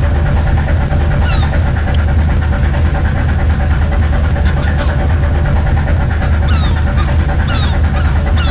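Fishing boat's engine running steadily with a loud low drone. Over it come short, high calls that fall in pitch, from a few early on to several a second near the end.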